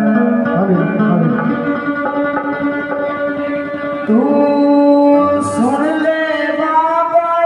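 Live Hindi devotional bhajan over a PA system: a woman singing over keyboard chords held on long notes, with a dholak drum, in loud, steady music.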